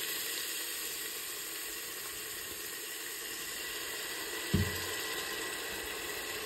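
Spice masala frying in oil in a pan, sizzling steadily, with a single dull thump about four and a half seconds in.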